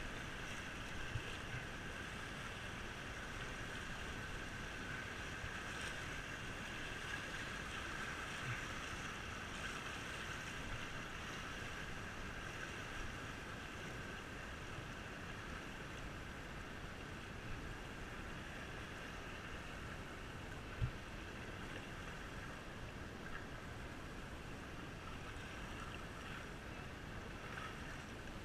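Fast river water rushing and churning around an open canoe crossing rapids, a steady noise that eases a little later on as the boat reaches calmer water. A few faint knocks break through, the clearest about 21 seconds in.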